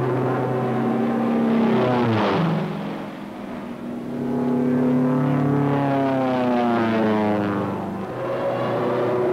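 A Grumman F6F Hellcat's Pratt & Whitney R-2800 radial engine makes low, fast fly-pasts, its note dropping in pitch as the plane passes. The pitch drops sharply about two seconds in, then falls slowly again in the second half.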